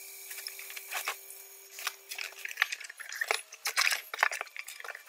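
Large cardboard shipping box being opened: packing tape cut with a utility knife and the flaps pulled back, giving a run of irregular crackles, rustles and scrapes of cardboard.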